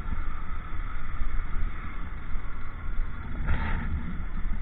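Honda motorcycle riding at low speed: steady engine and road noise with heavy low rumble on the rider's camera microphone, and a brief noisier burst about three and a half seconds in.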